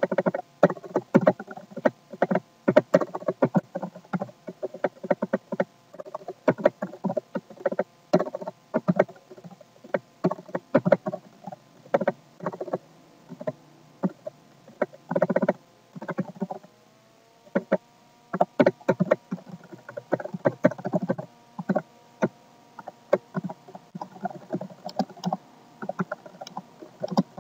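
Typing on a computer keyboard: rapid, irregular key clicks in quick runs, with a pause of about two seconds a little past halfway, over a faint steady hum.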